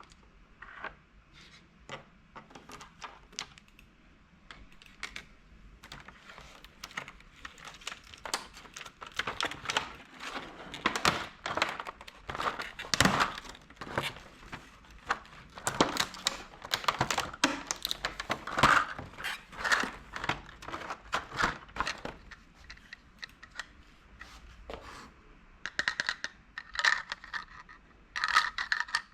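Small plastic toy-food pieces being handled: a quick run of clicks, taps and light rattling, with some crinkling. A few short ringing clinks come near the end.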